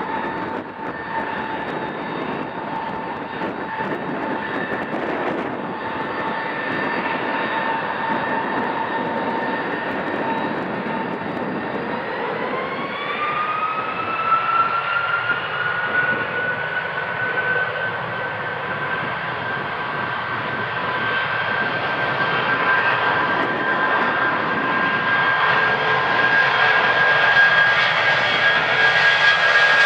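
A Boeing 757's two turbofan engines running with a steady whine, then spooling up to takeoff power: about twelve seconds in the whine rises in pitch and holds high, and the engine noise grows louder toward the end as the takeoff roll gets under way.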